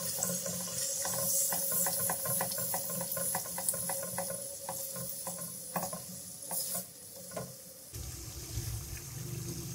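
Curry masala sizzling in oil in a wok as whisked yogurt is stirred in with a silicone spatula, the spatula strokes giving quick ticks and scrapes several times a second for the first several seconds. The oil has separated from the masala, so the yogurt fries noisily as it goes in.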